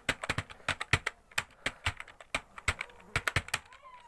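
Computer keyboard being typed on fast during a typing speed test: an uneven, quick run of keystroke clicks, about seven a second.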